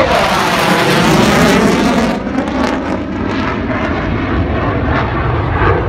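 Jet fighter flying past, its engine roar loud with a sweeping whoosh as it passes, becoming duller and a little quieter after about two seconds.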